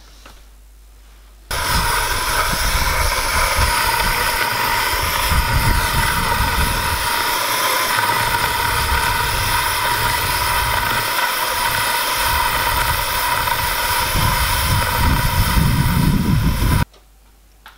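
Steady whirring rush with several fixed pitches, from a 3-inch scale Allchin traction engine being steamed up, with a fluctuating low rumble underneath. It starts abruptly about a second and a half in and cuts off shortly before the end.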